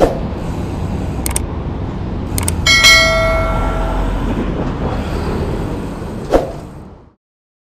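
Sound effects from a subscribe-button animation: sharp mouse clicks, then a bell ding that rings out over about a second, played over steady wind and road rumble from a moving bicycle. Everything fades out near the end.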